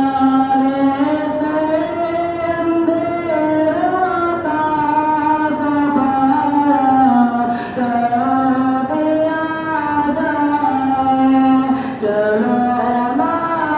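A single voice singing a slow melody, holding long notes and sliding between pitches.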